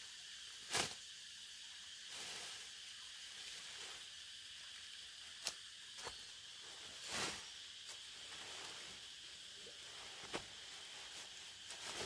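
A machete swishing and chopping through leafy vines, a handful of short sharp strokes with the loudest about a second in, and the cut foliage rustling as it is handled. A steady high-pitched hiss sits underneath throughout.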